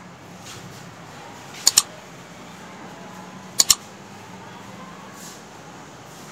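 Computer-mouse click sound effect, each a quick double click, heard twice about two seconds apart over a steady low background hum.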